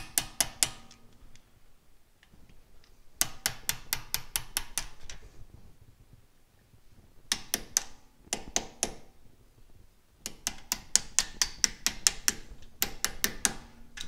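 Light hammer taps on a thin screwdriver, metal on metal, driving the brake pad retaining pins out through the caliper. The taps come in about five quick runs of several strikes a second, with short pauses between.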